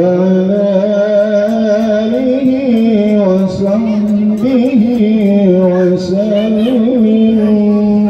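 A man chanting in long, drawn-out melismatic phrases into a microphone, held notes wavering with vocal ornaments.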